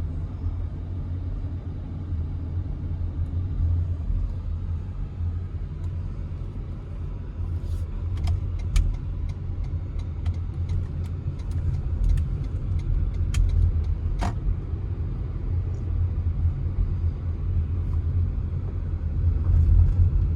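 Low, steady rumble of a car driving slowly, heard from inside the cabin, with scattered sharp ticks and clicks in the middle stretch.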